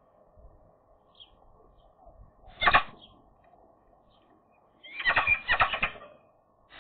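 Eurasian magpie giving harsh chattering calls: one short rasping note about two and a half seconds in, then a rapid rattling series of harsh notes a couple of seconds later.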